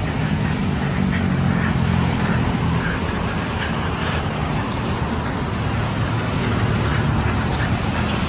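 Steady city street traffic: cars and motorbikes running along the road.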